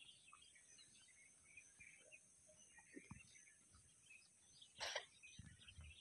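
Near-silent outdoor ambience with faint, scattered bird chirps and a steady faint high hiss, broken by one short rustling noise about five seconds in.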